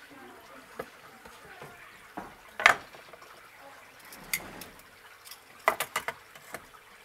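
Metal grill tongs and a knife knocking against a bamboo cutting board as they are handled and set down: one sharp clack about two and a half seconds in, then a quick run of lighter clicks near the end.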